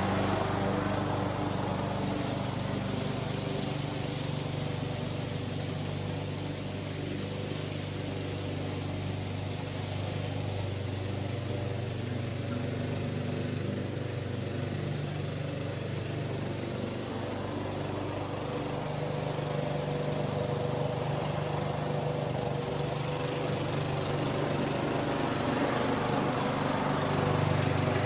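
Husqvarna LC 140S self-propelled four-stroke petrol lawn mower running steadily while being pushed across the lawn. It grows a little quieter in the middle and louder again toward the end.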